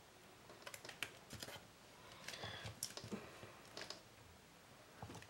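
Light taps, clicks and rustles of hands pressing foam-mounted paper die cuts onto a card and handling a plastic acetate sheet on a cutting mat, scattered irregularly and dying away near the end.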